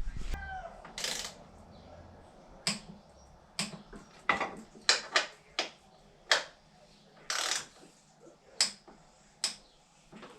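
Torque wrench on a dirt bike's subframe bolts: about a dozen short, sharp ratcheting strokes and clicks spaced irregularly, two of them slightly longer.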